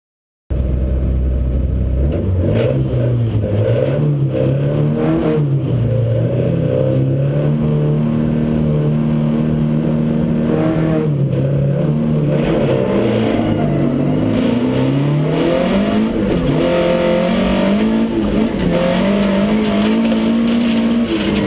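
Ford Escort RS2000 Mk6's 16-valve four-cylinder engine heard from inside the cabin under hard racing load. It comes in low about half a second in, then from about two seconds it revs up and drops again and again as it is driven hard through the gears.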